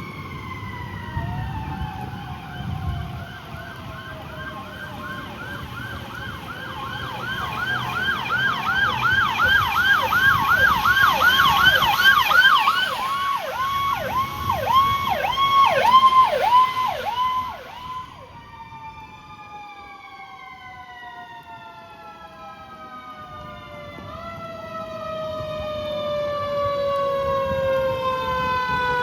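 Fire apparatus sirens. A slow falling wail switches to a fast yelp of about three sweeps a second, which is the loudest part. The yelp cuts off abruptly and gives way to long, slowly falling wail tones.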